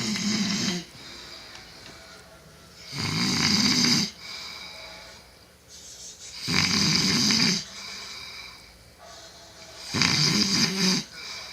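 A person snoring very loudly. There are four rough snores, each about a second long and about three and a half seconds apart, with quieter stretches between.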